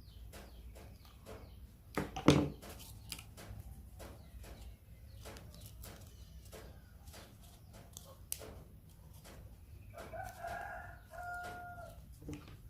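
Scattered light clicks and knocks with one loud thump about two seconds in. Near the end, a rooster crows in the background: one call, wavering at first, then held on one note.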